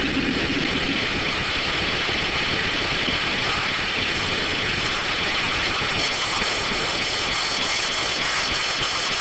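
D9 circular sawmill running, a steady mechanical noise from its saw blades and drive that holds at an even level.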